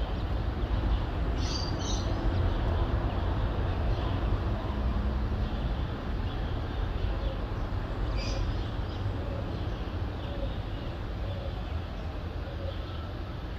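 Steady low rumble of distant city traffic, with brief high bird calls about two seconds in and again about eight seconds in.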